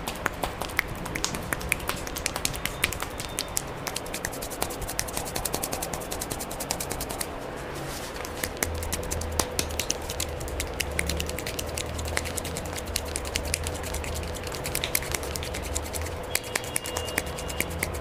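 Rapid, irregular slaps and taps of a barber's palms and fingers on a client's cream-covered face and forehead during a head and face massage.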